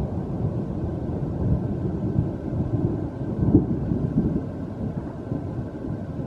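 Low rolling thunder rumbling from a storm, swelling to its loudest a little past the middle.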